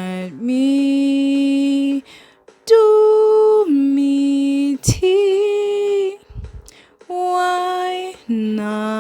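A woman singing long held notes, a few in a row stepping between pitches with short breaths between them, with no instruments heard. A single sharp click about five seconds in.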